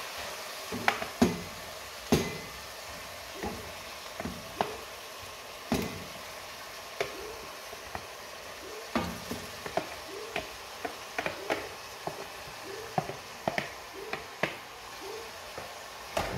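A wooden spoon knocking and scraping irregularly against a plastic container and the rim of a stainless steel pot as pieces of salt cod are spooned in, over a faint steady sizzle of onion and garlic frying in olive oil.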